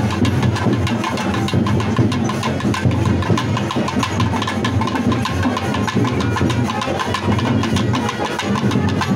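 Traditional temple-festival drums played in a fast, continuous beat, with crowd noise and a steady low drone underneath.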